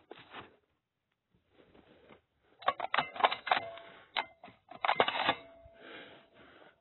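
Clattering handling noise: two bursts of rapid clicks and rattles, the first about two and a half seconds in and the second about five seconds in, with a faint steady hum after the second burst. The sound is thin and narrow, like a phone's audio.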